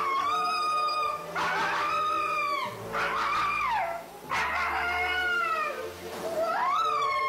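Siberian husky howling and whining in a string of about five long drawn-out calls, each sliding up and then down in pitch: the dog protesting at being blow-dried while it is groomed.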